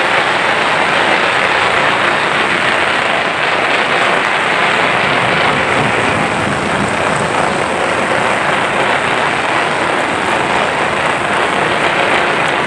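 Heavy rain pouring onto a paved road, a loud, steady hiss.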